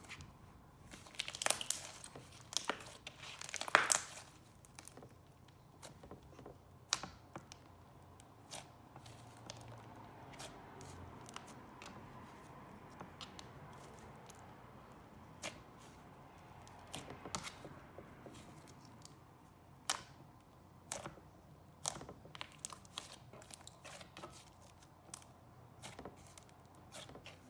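Hands squishing and stretching butter slime with sprinkles, making scattered soft clicks and crackles, with a few louder crackling bursts in the first four seconds.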